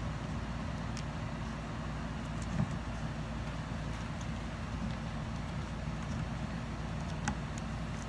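Steady low rumble, with a few light knocks and clicks as a stainless door trim panel is pushed and worked into place, the clearest about two and a half seconds in and again near the end.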